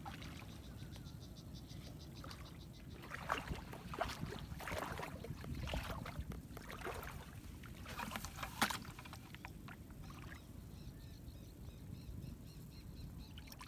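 Irregular swishing, splashing and crackling from about three to nine seconds in as a person wades through shallow floodwater and pushes into a leafy bush, over a steady low rumble. Faint, fast, high chirping sounds near the start and again near the end.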